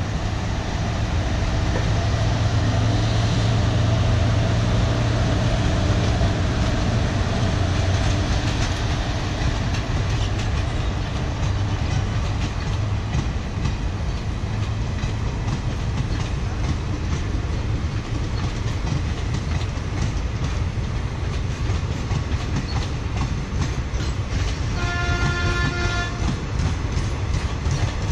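An electric locomotive hauling a passenger train passes close by with a steady low hum. The long rake of coaches then rolls past, its wheels giving a rhythmic clickety-clack over the rail joints. A short horn sounds near the end.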